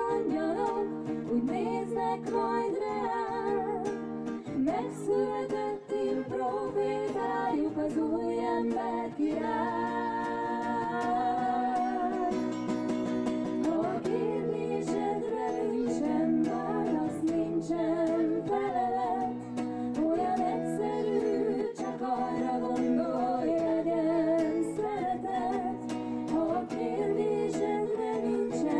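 A female vocal trio singing wordless harmonies in held notes, amplified through microphones, with an acoustic guitar accompanying.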